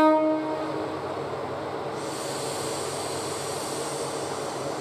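The tail of a train horn blast dies away in the first moments. It gives way to the steady running of the JR Kyushu KiHa 125-400 series diesel railcar's engine, with a hiss joining about two seconds in.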